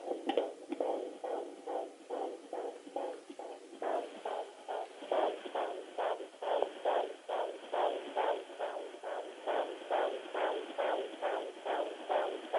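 Fetal heartbeat at 20 weeks picked up through a handheld home fetal doppler's speaker: fast, even whooshing pulses, a little over two a second, which grow stronger and steadier about four seconds in. It is a strong, healthy heartbeat.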